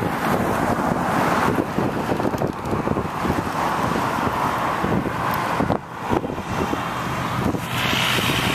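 Road traffic passing on a multi-lane road, cars and pickups going by, with wind buffeting the microphone. Near the end a semi truck's engine comes close and grows steadier and louder.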